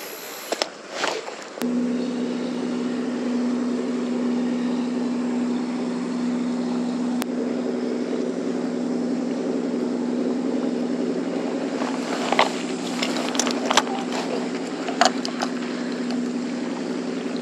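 Low, steady drone of a boat engine running at constant speed. A few light clicks come near the end.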